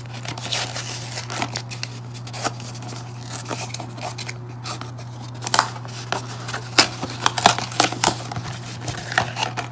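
Small cardboard blind box being torn open by hand: the glued flap peels away, tearing the paper surface of the card, with scraping and crinkling of cardboard and a run of sharp clicks and taps that come thicker in the second half. A steady low hum sits underneath.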